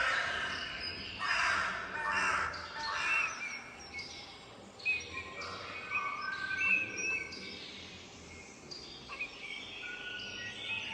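Recorded bird song and calls played back as part of an audiovisual artwork. A dense run of overlapping chirps fills the first few seconds, then come fewer, longer whistled notes.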